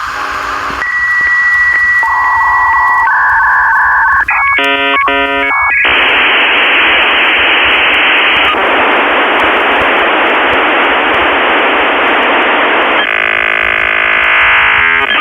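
Dial-up modem handshake over a phone line: a run of steady beeping tones and a chattering stack of switching tones about four seconds in, then a long loud hiss of static, broken near the end by a few seconds of buzzing tones.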